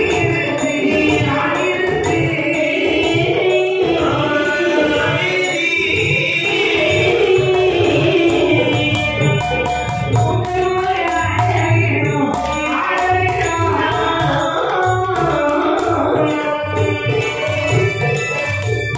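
Villupattu (Tamil bow-song) music: a voice sings a melody over a steady hand-drum beat and rapid jingling percussion.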